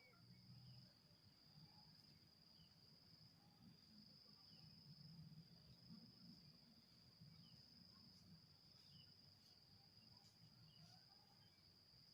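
Quiet rural night-time-like ambience dominated by an insect, most likely a cricket, trilling one steady high continuous note, with a faint low hum underneath.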